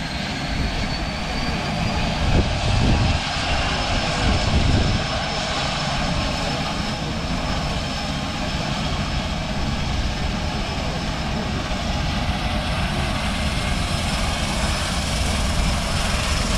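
A seaplane's propeller engines run at take-off power: a steady heavy rumble under a thin high whine that rises slightly in pitch over the first several seconds. There are a few stronger low surges between about two and five seconds in.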